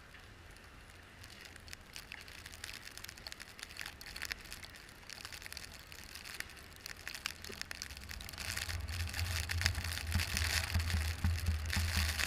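A vehicle driving through snow: a steady crackle of snow and slush under the tyres over a low rumble, both getting louder about eight seconds in.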